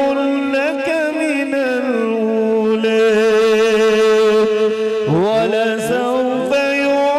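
A man reciting Quran verses in the melodic tajwid style, holding one long note for a few seconds, then a rising ornamented phrase about five seconds in.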